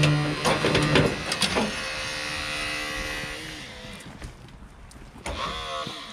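Vehicle extrication work on a car: a motorised rescue tool whines steadily while the car's metal and glass give sharp cracks and snaps in the first second and a half. The whine fades after about three and a half seconds, and a wavering creak comes near the end.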